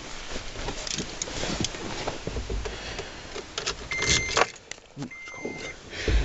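Keys and the camera rustling and clicking near the ignition of a 2010 Toyota FJ Cruiser, with two high electronic beeps in the second half, the second one longer.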